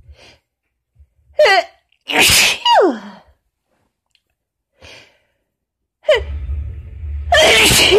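A woman sneezes hard twice, each sneeze coming after a quick gasping inhale. The first comes about two seconds in and ends in a falling cry; the second comes near the end. These are strong sneezes from fall allergies on top of the tail end of a cold.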